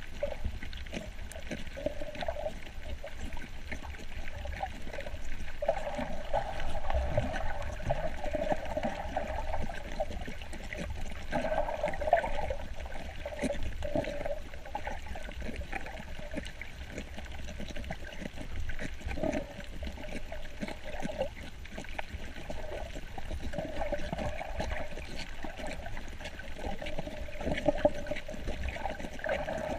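Water sloshing and gurgling, heard muffled underwater while snorkeling, over a constant low rumble, with swells that come and go.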